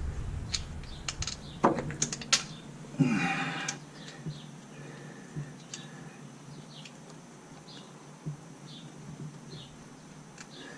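Hand tools clicking and clanking on carburetor bolts, with a louder clank about three seconds in. After that the work goes quiet and faint, scattered bird chirps are heard.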